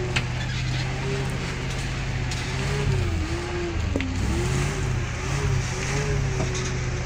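Engine of a heavy log-laden truck pulling in low gear through deep mud ruts. It runs steadily at first, then from about three seconds in the revs dip and rise again and again under the load.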